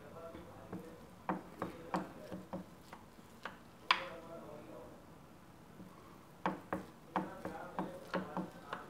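Kitchen knife cutting through set coconut barfi in a glass baking dish, the blade tapping and knocking against the glass in short runs of sharp taps, several a second, with one louder knock about four seconds in.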